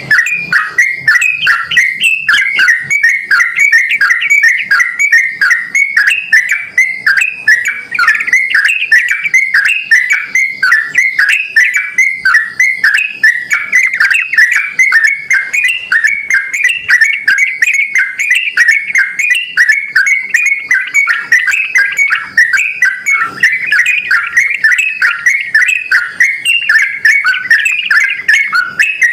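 Yellow-vented bulbul (trucukan) singing vigorously: a rapid, unbroken run of chirping, whistled notes.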